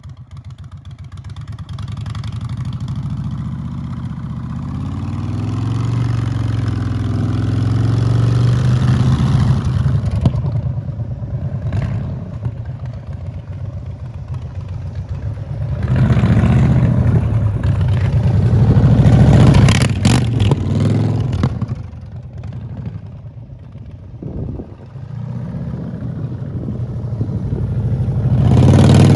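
Indian Chief V-twin engine revving through a chrome one-piece aftermarket exhaust with a slash-cut end cap: a slow climb in revs that drops back about ten seconds in, a cluster of quick throttle blips in the middle, then another climb near the end.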